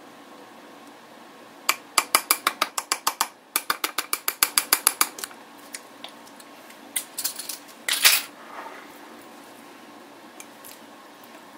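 A plastic measuring spoon tapped rapidly against the rim of a glass mason jar to shake off sticky chocolate syrup: two runs of quick light clicks, about seven a second. A few scattered clicks follow, and then a short scrape.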